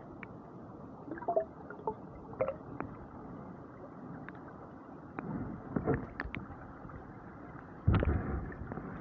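Muffled sound heard through a submerged camera: a steady low hiss of water with scattered light knocks and clicks, and a heavy thump about eight seconds in.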